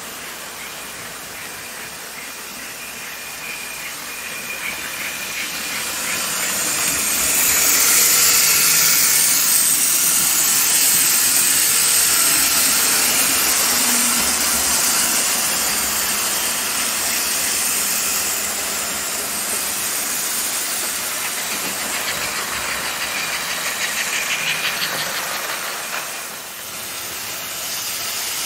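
Gilbert HO model steam locomotives running on track: the steady whirring hiss of their electric motors and gears and metal wheels on the rails, growing louder about six seconds in as a train passes close.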